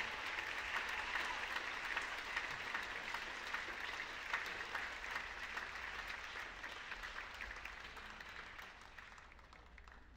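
Audience applauding a live orchestra performance, many hands clapping; the applause gradually dies away over the last few seconds.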